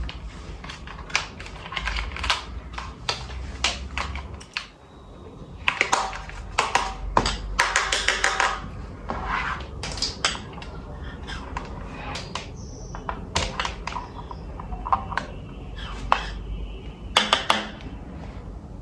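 Hands handling a toy and its packaging: irregular clicks, taps and crinkling rustles of plastic and cardboard, busiest in the middle with a few sharper snaps near the end.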